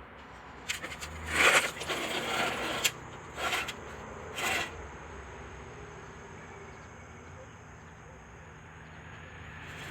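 Scraping and rustling handling noises, probably tools and parts being moved while working under the car: one longer stretch of about two seconds, then two short scrapes, over a faint steady background hum.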